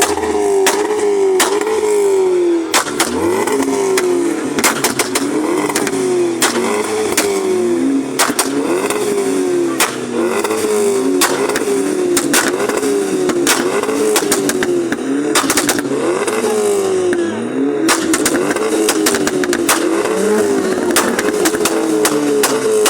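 Car engine revved over and over, its pitch rising and falling about once a second, with many sharp pops and bangs from the exhaust.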